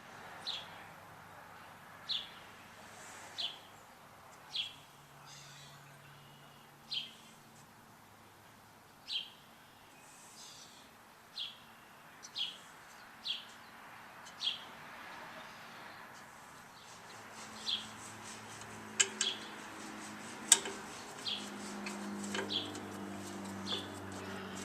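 A bird chirping over and over, each chirp short and falling in pitch, roughly one every second or so. Two sharp clicks stand out as the loudest sounds about two-thirds of the way through, and a faint low hum grows in the last few seconds.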